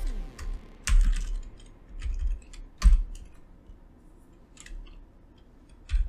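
Typing on a computer keyboard: about half a dozen separate keystrokes at irregular intervals, the loudest about three seconds in, with a quieter pause in the second half.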